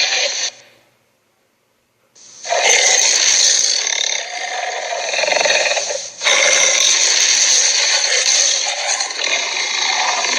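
Harsh, raspy creature-growl sound effect. It breaks off for about a second and a half near the start, then returns in two long rasping stretches with a short break between them.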